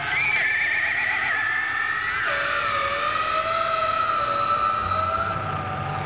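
1970s rock recording: a lead line slides between held notes with a wide, wobbling vibrato about half a second in, over the rest of the band.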